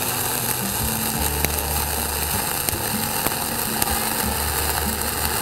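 Dual-shield flux-core wire welding arc (0.045 wire) burning steadily on a horizontal (2G) fill pass: a continuous crackling hiss with scattered sharper pops of spatter.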